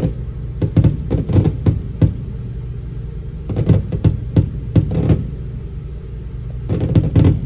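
Fireworks going off: a run of bangs and pops in three clusters over a steady low rumble.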